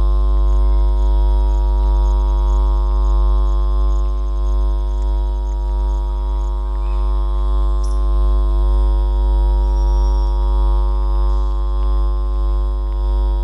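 A loud, steady, unchanging low hum with many overtones, like electrical mains hum, with a heavy low rumble beneath it.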